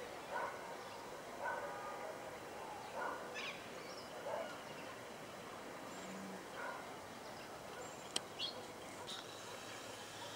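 A dog barking repeatedly, roughly once a second for the first seven seconds. After that come a few short, high bird chirps and one sharp click.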